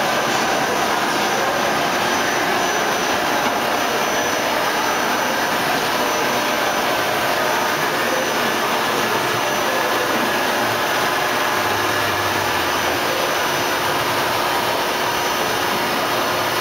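Steady machinery noise from a running industrial paint-filling line and its conveyors: a constant rushing hum with faint steady whines over it.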